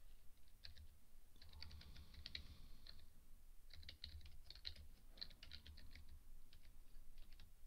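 Faint typing on a computer keyboard: two runs of quick key clicks with a short pause between them.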